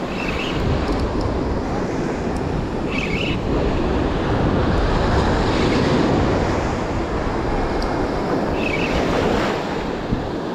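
Surf washing up the beach with wind buffeting the microphone: a steady rushing noise that swells through the middle and eases near the end.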